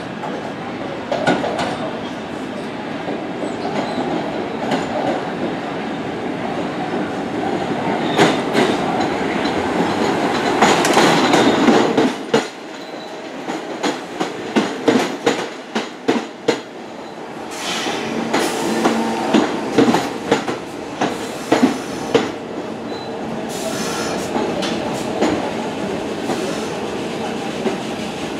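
R46 subway train pulling into a station: a steady rumble and clatter of wheels on rail that peaks, then breaks into separate wheel clicks that come more slowly as the train brakes, with brief high squeals before it stands at the platform.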